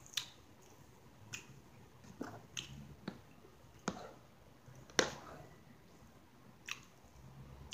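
Close-up chewing of fried pork chop and mashed potatoes, with about eight short, sharp, wet clicks scattered through it; the loudest comes about five seconds in.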